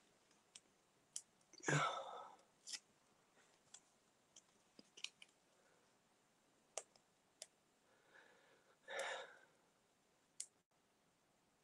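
Faint, scattered clicks and taps from paper card being handled and pressed down, with two short soft rustles, about two seconds in and again near nine seconds.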